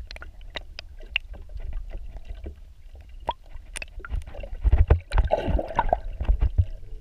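Water sloshing and splashing close to the microphone as a peacock bass is released by hand at the surface, with many small clicks over a low rumble. About four and a half seconds in comes a louder spell of churning splashes as the fish kicks free and swims off.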